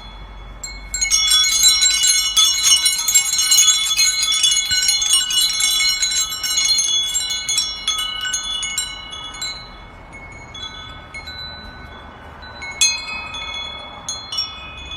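Chimes tinkling: a dense flurry of ringing metallic strikes that thins out after several seconds, with a few fresh strikes near the end.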